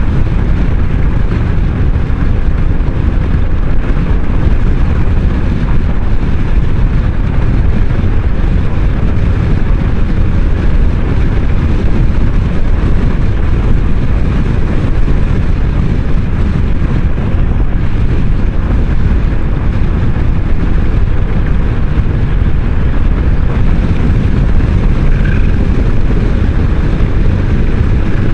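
Kymco Xciting 500 maxiscooter riding at speed: a loud, steady rush of wind on the microphone with engine and road noise beneath it.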